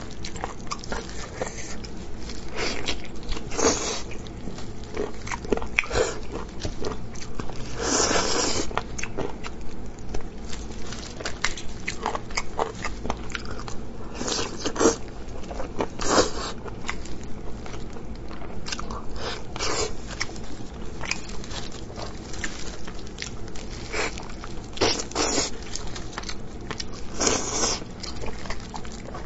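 Eating sounds: a person biting, tearing and chewing braised pork rib meat off the bone. Irregular wet clicks run throughout, with louder bursts every few seconds.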